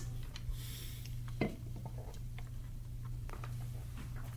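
A sip from an aluminium energy-drink can, a short breathy hiss, then a knock about a second and a half in as the can is set down on the desk. A few faint ticks follow over a steady low hum.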